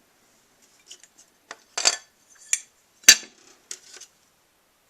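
Sharp metallic clicks and clinks of a metal heatsink and small parts being handled on an SGI Octane graphics board during disassembly. About seven separate clinks, the loudest about three seconds in.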